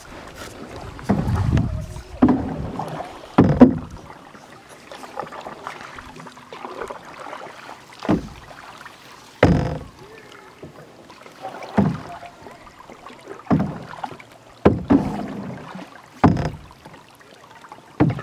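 Canoe paddle strokes: a dull knock with a short swish of water every second or two as the paddle dips and bumps the hull, about ten strokes with a quieter pause in the middle.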